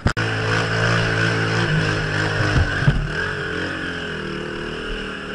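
Dirt bike engine running steadily as the bike rides along a muddy trail, its pitch dropping a little about three seconds in.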